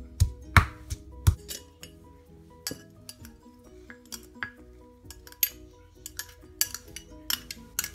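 Stone pestle pounding garlic and black peppercorns in a stone mortar: three heavy thuds in the first second and a half, then lighter knocks and clinks as chopped coriander stems are tipped in from a glass bowl against the mortar.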